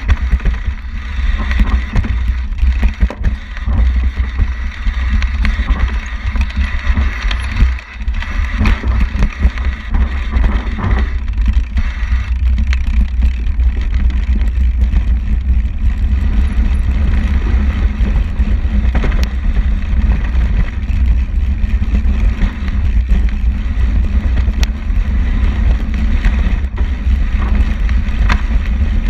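Heavy wind rumble on the microphone with the tyre noise of a bicycle moving fast, rough and choppy on the dirt track, then steadier once the wheel is on asphalt about twelve seconds in.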